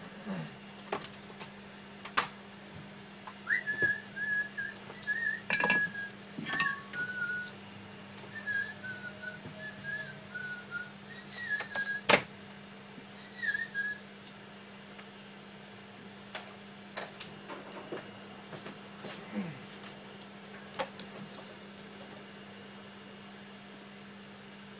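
A person whistling a wavering tune for about ten seconds, mixed with scattered sharp clicks and knocks of things being handled, over a steady low hum.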